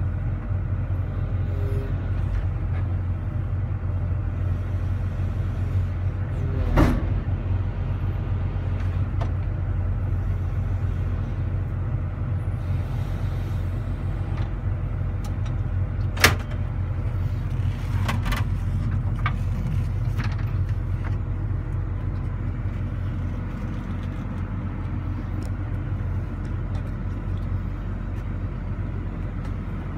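Sumitomo SH300-5 excavator's Isuzu six-cylinder diesel engine idling steadily, heard from inside the operator's cab. Two sharp knocks sound about 7 and 16 seconds in.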